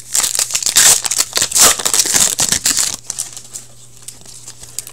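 Upper Deck hockey trading cards being handled and slid against one another close to the microphone: a dense, crackly rustle of clicks for about three seconds, then a few lighter clicks.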